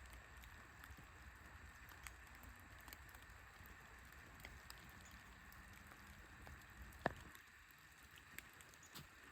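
Near silence: faint outdoor ambience with scattered light ticks, and one sharper click about seven seconds in.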